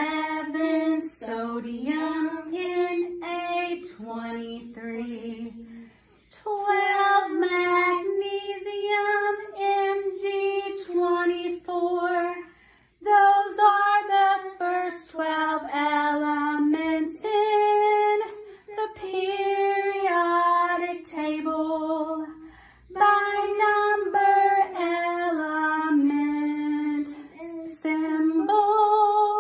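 Two children, a girl and a boy, singing a melody together unaccompanied, in phrases broken by short pauses.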